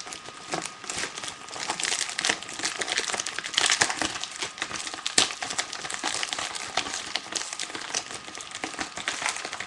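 Paper envelope being pulled and torn open by hand, a dense irregular crinkling and crackling of paper held shut with strong glue.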